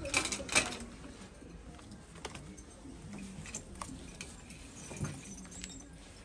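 Light metallic clinks and rattles of goods being put into a wire shopping trolley, a quick cluster in the first second, then a few scattered clicks.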